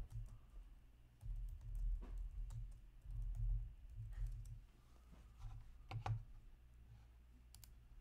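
Typing and clicking on a computer keyboard: irregular keystrokes with dull low thumps, busiest between about one and five seconds in.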